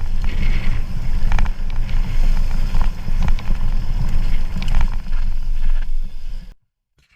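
Mountain bike ridden fast down a rough trail over braking bumps and rocks: heavy wind rumble on the camera microphone with frequent clattering knocks from the bike. The sound cuts off suddenly about six and a half seconds in.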